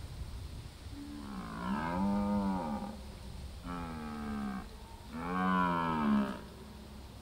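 Red deer stag roaring during the rut: three deep, pitched roars, the first about two seconds long and the last the loudest.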